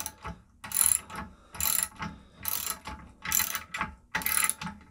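Socket ratchet wrench clicking as it is worked back and forth to tighten a cap screw, about five ratcheting strokes a little under a second apart.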